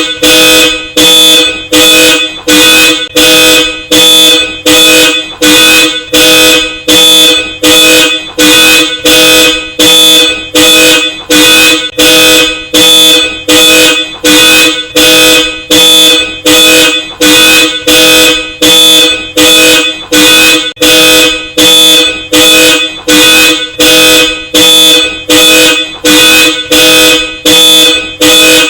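Car alarm sounding through Hella Supertone dual-tone horns: loud, evenly repeated honks of about one and a half a second, each the same steady two-note chord.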